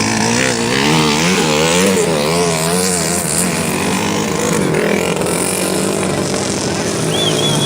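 Small motorcycle engines running, one revved up and down repeatedly for the first few seconds. A short high whistle starts near the end.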